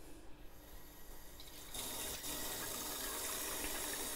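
Kitchen tap turned on about a second and a half in, then running steadily into a sink.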